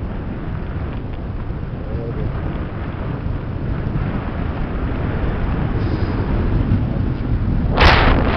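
Wind buffeting the microphone in flight under a paraglider: a steady rumbling rush that grows slightly louder. A short, loud burst near the end, like a gust or the microphone being knocked.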